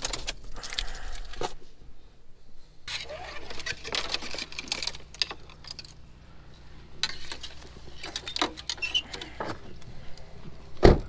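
Handling noise of fishing rods, reels and gear being gathered out of a car: a run of light clicks, knocks and rustles, with keys jangling, and one heavy thump near the end.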